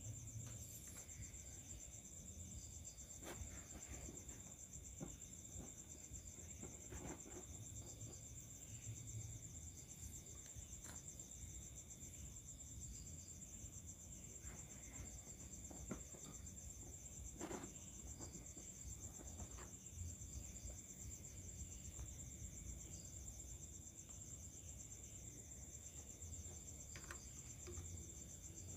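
Insects, crickets, trilling steadily at a high pitch, with a few faint clicks and taps scattered through.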